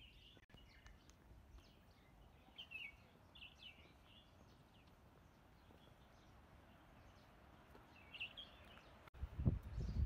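Scattered faint bird chirps and short calls over a quiet open-air background. About nine seconds in, a louder, uneven low rumble begins: wind buffeting the microphone.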